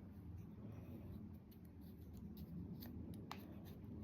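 Faint scraping and rustling of kinetic sand being scooped, with a few soft clicks.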